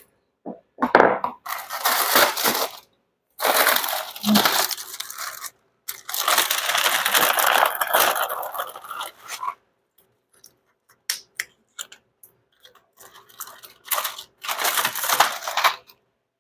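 Medicine tablets being crushed and scraped, in several noisy bursts of one to three seconds with short gaps and a few clicks between them.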